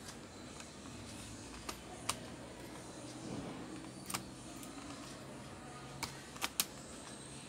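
About half a dozen sharp clicks and taps from small parts being handled inside an opened HP EliteBook 840 laptop, three of them close together near the end, over a low steady hum.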